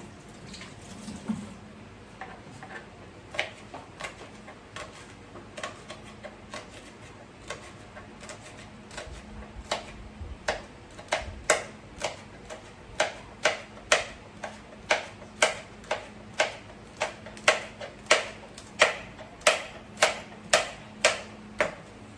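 Knife chopping green and red chilies on a cutting board. Sharp chops come scattered at first, then settle about halfway through into a steady, louder rhythm of about one and a half chops a second.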